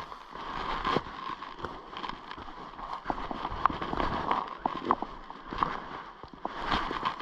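Footsteps of a person walking, an uneven run of short crackling steps.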